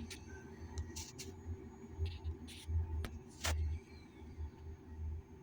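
Whirlpool washing machine running its spin-cycle test, a low uneven pulsing rumble, with several sharp clicks over it.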